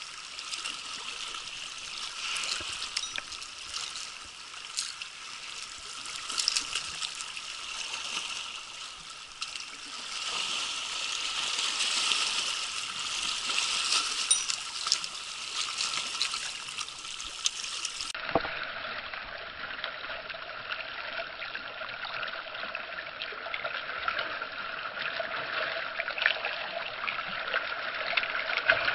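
Small waves washing and lapping over shallow shoreline rocks, a steady wash with scattered small splashes.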